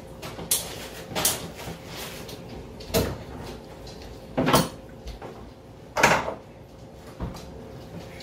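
Rigid PVC pipe and fittings knocking and clacking as they are handled and pushed together, about six separate knocks with the loudest about four and a half and six seconds in.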